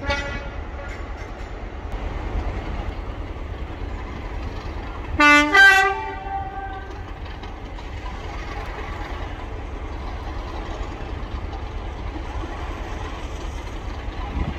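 Diesel locomotive horn sounding two short, loud blasts on two different notes about five seconds in, over a steady low rumble. There is a shorter, fainter horn note at the very start.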